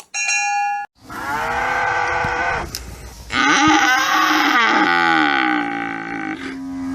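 A short steady tone, then cattle mooing: several long, loud moos follow one another and overlap, their pitch sliding up and down and dropping low near the end of each call.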